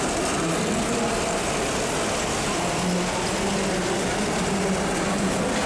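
Vintage tinplate model trains running on three-rail track: a steady running noise with a faint wavering hum. Underneath is the constant background noise of an exhibition hall.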